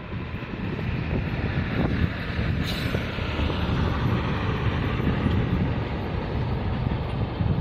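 Steady wind rumble buffeting the microphone, with a tank truck driving past close by, and a brief crackle nearly three seconds in.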